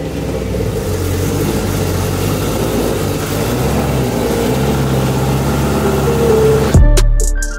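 BMW E93 M3's V8 idling steadily just after start-up. Near the end, music with heavy bass beats starts.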